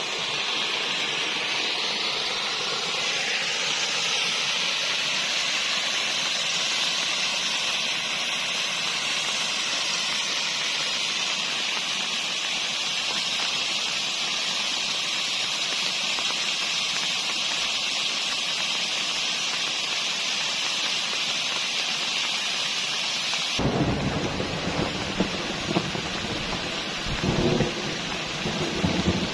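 Steady rain falling, an even hiss. About three-quarters of the way through, the sound changes suddenly to a deeper, uneven rumbling with a few louder swells near the end.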